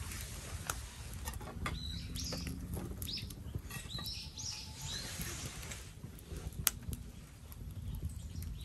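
A few short, high chirps of small birds through the middle, over a steady low rumble, with several sharp clicks.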